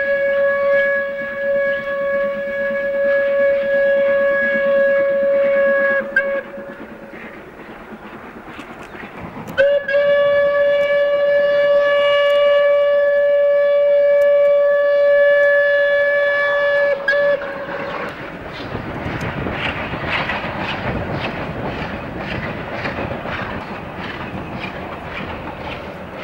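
Steam locomotive whistle sounding a long, steady blast, then a second long blast after a gap of about three seconds. After that comes the quieter, rhythmic chuffing of the locomotive's exhaust as it works the train along.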